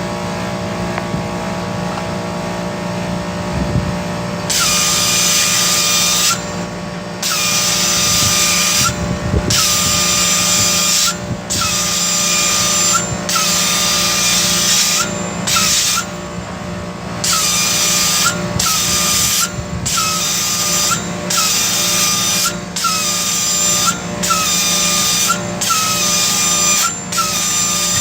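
Repeated bursts of pressurised nitrogen hissing from a blow gun, blowing out a clogged condenser coil. They start about four seconds in and come roughly once every one to two seconds, each lasting about a second, with a brief whistle as the valve opens and closes, over a steady low hum.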